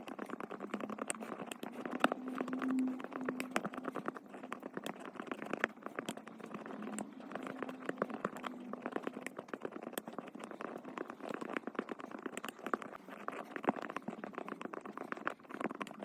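Slime being kneaded and pressed by hand, squelching with a dense run of small sticky clicks and pops.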